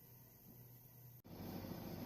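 Faint steady hum, then a little over a second in an abrupt cut to louder, steady low rumbling background noise.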